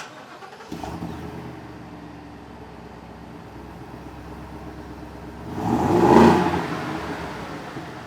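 Ford 7.3L gas V8 exhaust in a Super Duty pickup: the engine starts about a second in, idles with a steady burble, then gets one quick rev that swells and falls back near the end.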